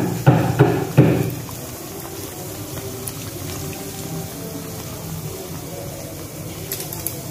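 A metal fork jabbing dough logs in a wok of hot oil, knocking on the pan about three times a second for the first second. Then the oil sizzles steadily around the frying dough.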